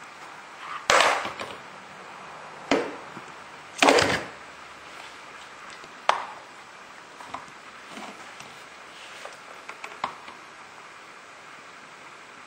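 Toy blocks knocking and clattering as a toddler handles them in and around a plastic toy bin: four sharp knocks in the first six seconds, the loudest about four seconds in, then a few lighter taps.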